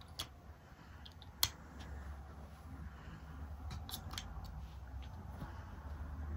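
Apple AirPods Pro (2nd generation) earbuds being dropped into their open charging case, small hard-plastic clicks as they snap into their slots. One sharper click about a second and a half in, and a quick run of light clicks about four seconds in.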